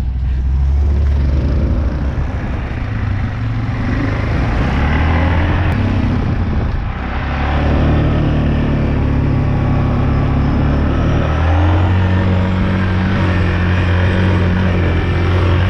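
Off-road vehicle engine running hard under throttle, its note shifting a few times and stepping up about twelve seconds in.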